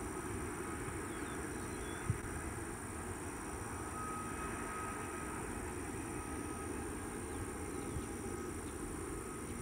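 Steady airfield background noise: a continuous low rumble with a thin, high steady whine over it. Faint bird chirps sound in the first couple of seconds, and a single short knock comes about two seconds in.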